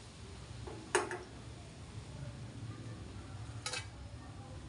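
Aluminium saucepans clanking against a steel gas stove as they are set down and moved: a sharp metallic clank about a second in and a lighter one near the end, over a low steady hum.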